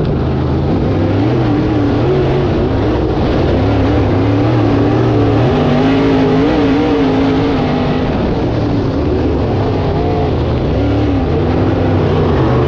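Dirt-track modified race car engine running hard and loud, its revs swelling and easing every second or two as it goes around the track.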